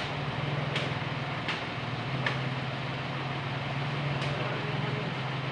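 A steady engine hum with a sharp tick about every three-quarters of a second through the first half.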